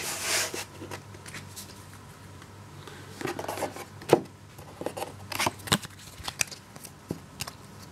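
Ganbaride trading cards being handled and set down on a wooden table: a brief rustle of card at the start, then a few scattered sharp taps and clicks of cards against the tabletop, mostly in the second half.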